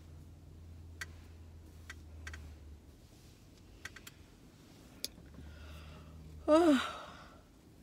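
A few faint scattered clicks, then near the end a woman's loud yawn as she stretches, a short voiced sound falling in pitch.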